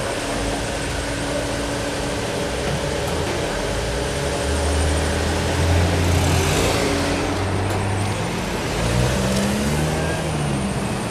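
City street traffic: car engines running, with a vehicle passing close about six and a half seconds in and an engine's pitch gliding up and down near the end.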